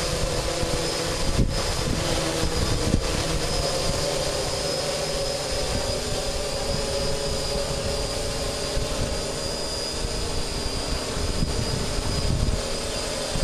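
DJI 550 hexacopter's electric motors and propellers humming steadily in flight, buffeted by strong wind, with gusts rumbling on the microphone.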